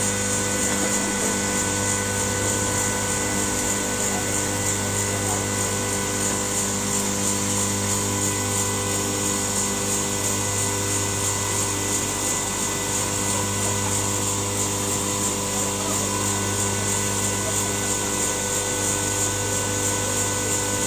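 Steady machine drone with several constant whining tones, from the hoisting machinery lifting the tower cross on its steel cables; it holds level and pitch throughout.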